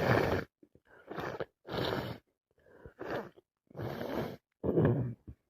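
A woman with a heavy cold making a run of about six short, loud, breathy bursts through her congested nose, each about half a second long.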